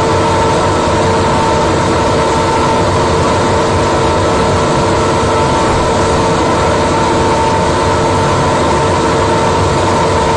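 Steady mechanical hum with a constant droning tone and no breaks: the running sound of a laser powder-bed metal 3D printer as its laser melts a powder layer track by track.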